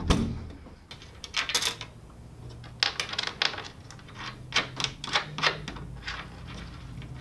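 Small metal hardware clicking and tapping in short irregular clusters as a nut and washer are fitted by hand onto a bolt on a metal-tube roof rack frame.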